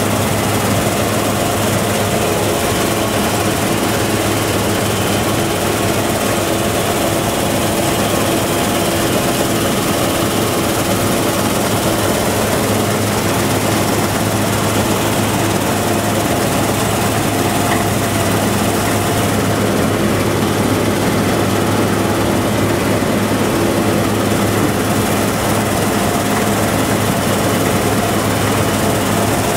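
Case IH Axial-Flow 8010 combine harvester running steadily under load while harvesting wheat: diesel engine and threshing machinery with a constant low hum.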